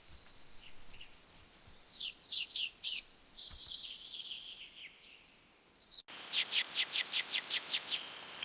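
Small birds singing in short phrases of quick, high, repeated notes with a brief trill. After an abrupt cut about six seconds in, a run of about nine quick notes follows.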